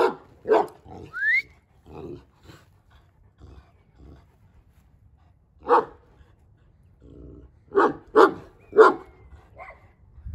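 Large Kangal shepherd dog barking in deep single barks: a few in the first two seconds, one more near the middle, then three in quick succession near the end.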